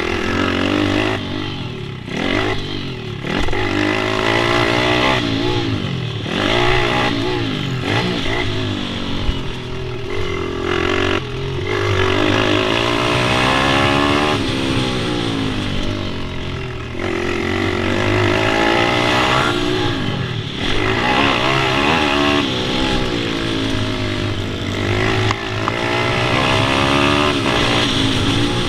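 Pit bike engines revving on a track, their pitch climbing and dropping repeatedly as the bikes accelerate, change gear and slow for corners.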